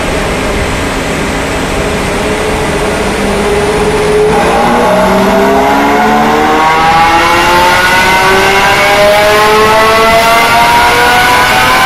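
2014 Aston Martin Vanquish V12 with an aftermarket exhaust, headers and race catalysts, running a pull on a chassis dyno. It holds steady revs for about four seconds, then the engine note climbs steadily in pitch as the revs rise through the rest.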